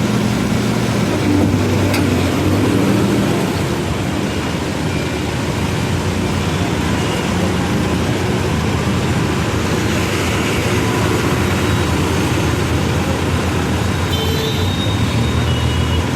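CASE backhoe loader's diesel engine running steadily: a continuous low drone with no clear breaks.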